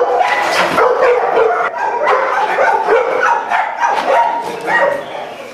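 A bulldog-type dog vocalizes loudly and almost without pause, in a string of short pitched calls with brief dips between them. The sound cuts off suddenly at the end.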